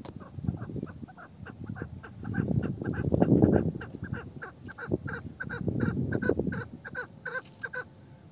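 An old hen chukar partridge with a male-like voice calling a long run of short clucking notes, about four a second. A louder low rumbling noise rises under the calls twice in the middle, the loudest about three seconds in.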